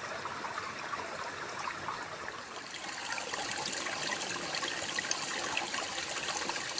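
Water running and trickling steadily, like a small stream.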